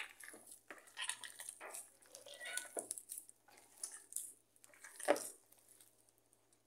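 Hand kneading and squeezing wet corn masa dough in a plastic bowl: irregular soft squishing and crumbling, with one louder hit about five seconds in.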